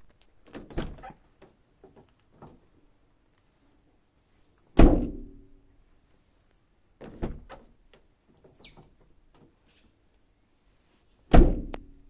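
Mazda Atenza Wagon (GJ) door opened with latch clicks and shut twice, about 5 s and 11 s in; each slam thuds and is followed by a short twanging, boing-like ring, the abnormal 'bain' noise this door makes on closing.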